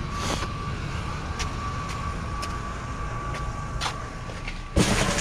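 Vehicle engine idling, a steady low rumble with a thin steady whine, with a few light clicks over it. A sudden loud rustling clatter comes near the end.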